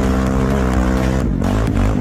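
Quad bike (ATV) engine running at steady high revs while climbing a sandy hill. About a second in, the revs start rising and falling as the throttle is worked.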